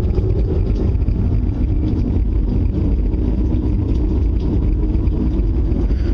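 Loud, steady low rumble of an unidentified source, which the listeners took for an approaching tornado.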